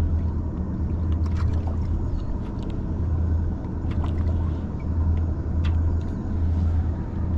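A boat motor running with a steady low hum, with a few faint clicks over it.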